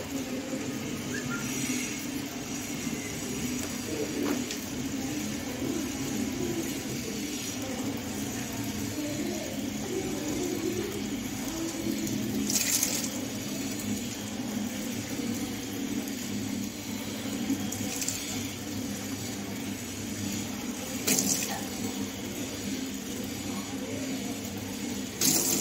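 Water gushing and splashing steadily as a large volume of drunk water is brought back up during kunjal kriya, the yogic water-vomiting cleanse, with a few sharp splashes.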